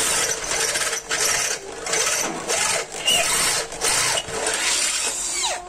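Corded electric drill boring into the thick steel base of a cut-off saw, enlarging a drilled hole. The drill runs in several spells with short breaks, and near the end its motor is released and winds down with a falling pitch.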